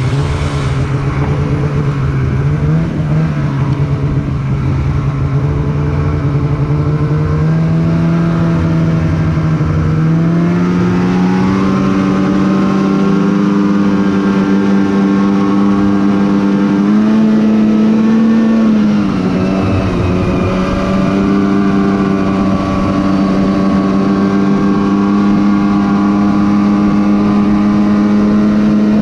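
Polaris Pro RMK 800 snowmobile's two-stroke twin engine running under way. Its pitch steps up about a third of the way in, rises briefly higher and dips back about two-thirds of the way through, then holds steady.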